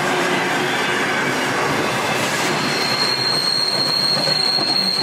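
Flat wagons of a track-laying train rolling past on a curved track, wheels running on the rails with continuous rolling noise. About three seconds in, a steady high-pitched wheel squeal sets in and holds.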